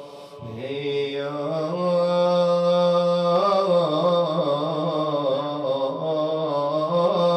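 A man chanting a Shia elegy (nai) in Arabic: long held notes with wavering ornaments, the voice entering about half a second in on a rising note.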